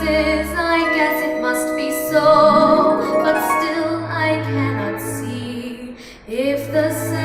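An 11-year-old girl singing a slow song with instrumental accompaniment, holding long notes, with a brief breath-pause about six seconds in.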